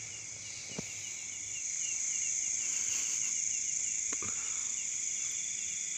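Night chorus of crickets and other insects: a steady high shrill with rapid repeated chirps under it, and two faint clicks, about a second in and about four seconds in.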